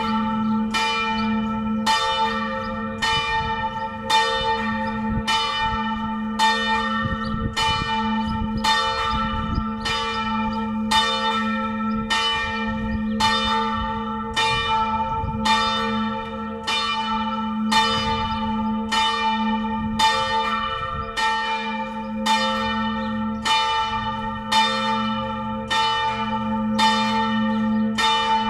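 The four-bell peal of a church tower, largest bell in G-flat, rung together in full for the noon ringing. Its strokes come a little over one a second and overlap, over a steady low hum that rings on between them.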